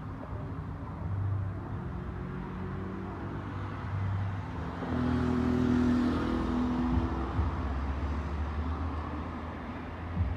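Diesel locomotive engine running with a low steady drone. It grows louder about halfway through, then eases off.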